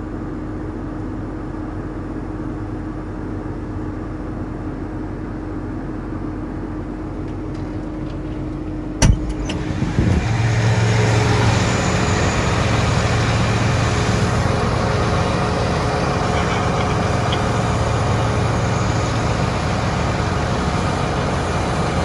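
Farm tractor engine running steadily, heard from the cab. About nine seconds in there is a sharp click, and after it the engine is louder, with a deeper, steadier hum.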